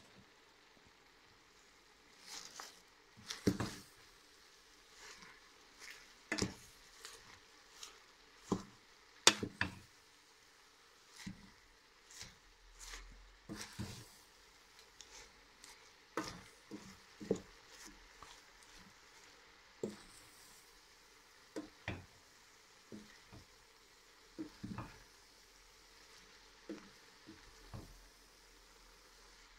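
A wooden spoon knocks and scrapes against a stainless-steel pot while stirring spinach sautéing in oil. The knocks are irregular, about one a second, over a faint sizzle.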